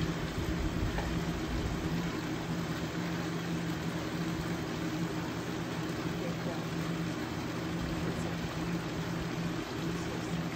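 A steady machine hum over a constant noisy background, unchanging in pitch and level.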